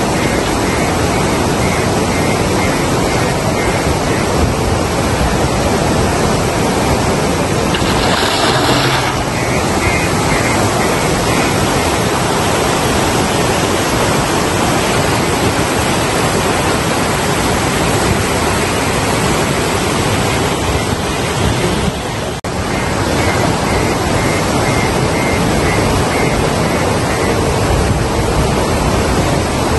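Loud, steady rushing noise with no clear engine note or rhythm in it, dipping briefly about 22 seconds in.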